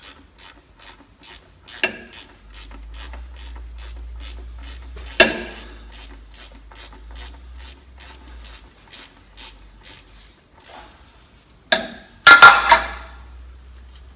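Ratchet wrench on a 13 mm socket clicking steadily as it backs out the oil drain plug, about three or four clicks a second; the clicking stops near the end. A sharp knock about five seconds in and a few loud knocks near the end stand out above it.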